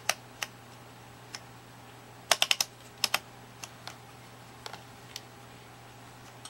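Rotary selector switches of an Eico 235 vacuum tube voltmeter clicking through their detents as the knobs are turned. The clicks are sharp and scattered, with a quick run of four about two seconds in and a pair just after, over a faint steady low hum.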